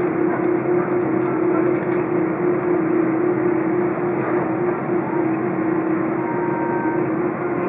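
Airliner cabin noise in an Airbus A330 taxiing with its engines at idle: a steady rush with one constant droning tone.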